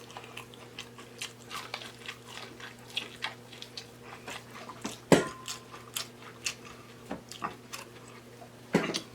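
Close-miked eating sounds: chewing and wet lip-smacking in irregular clicks, with a louder smack about five seconds in and another near the end.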